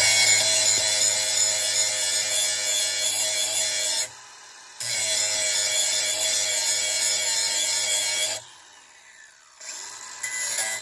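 Power grinder running and grinding a steel lawn mower blade, taking the edge back down after it was ground in too far. The grinding breaks off briefly about four seconds in, resumes, then stops a few seconds before the end as the wheel winds down.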